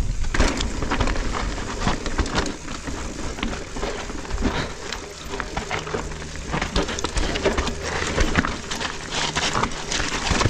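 Mountain bike descending a rocky trail at speed: tyres crunching and skittering over loose stone, with frequent sharp knocks and rattles from the bike as it hits rocks and roots.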